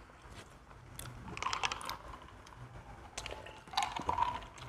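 Close-up eating sounds: scattered small clicks and crunches from chewing pizza, in two clusters about a second in and again about three seconds in, with a glass of iced cola being lifted to drink near the end.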